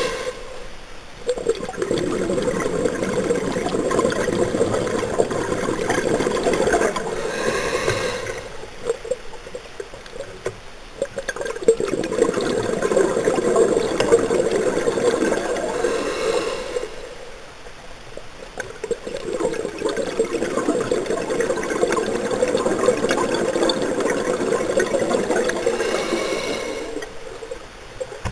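Scuba diver breathing through a regulator underwater: a short hiss of inhalation roughly every eight to nine seconds, each followed by several seconds of bubbling exhaled air.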